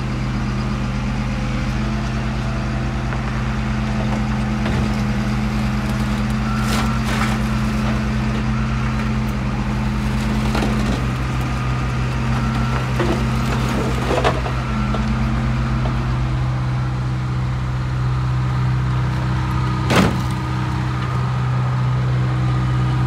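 Car crusher's engine running steadily at idle, with a few sharp metallic knocks, the loudest near the end.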